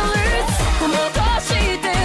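Japanese electronic pop song with a woman's voice singing over a steady kick-drum beat, about two beats a second.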